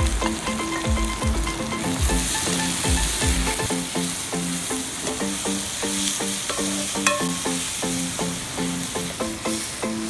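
Sliced onion and garlic sizzling in hot oil in a metal pan over a wood fire, stirred with a coconut-shell ladle, with one sharp knock about seven seconds in. Background music with a melody plays underneath.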